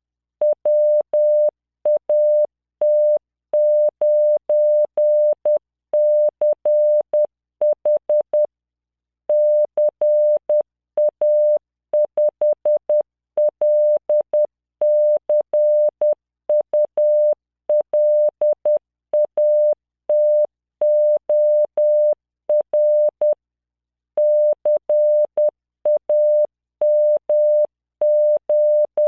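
Morse code from CW training software: a 600 Hz tone keyed on and off in dots and dashes at 10 words per minute, sending practice words mixed with numbers and symbols. Each tone starts and stops with a faint click, and there are two longer pauses between groups.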